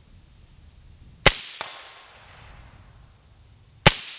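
Two shots from a suppressed BCM AR-15 rifle (Griffin Armament M4 SD2 suppressor), about two and a half seconds apart. Each is a sharp crack that rings away, followed a moment later by a faint tick.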